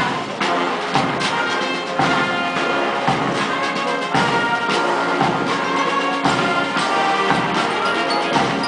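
Military band playing a march: brass over drum beats that fall about once a second.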